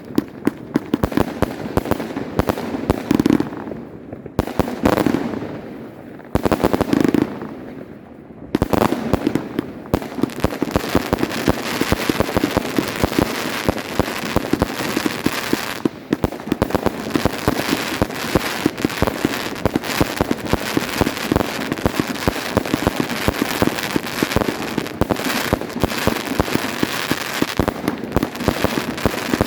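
Volt! Voltbrothers firework battery firing: rapid bangs and dense crackling. There are a few short lulls in the first eight seconds, then it fires nonstop from about nine seconds in.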